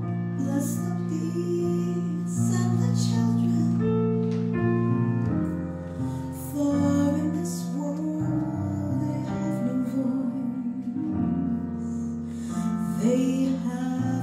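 A woman singing into a microphone, accompanied by a Yamaha CP4 Stage digital piano playing held chords.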